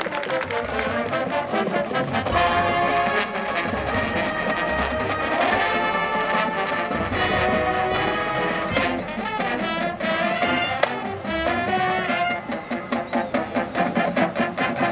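High school marching band playing its field show, the brass section carrying the music over percussion. Near the end the playing turns to a steady, pulsing beat of about three strokes a second.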